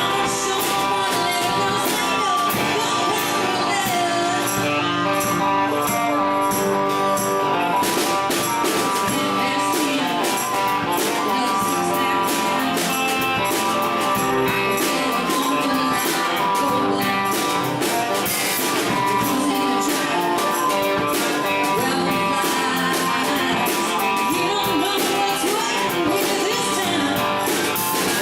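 Live country-rock band playing a song, with guitars, drums and singing.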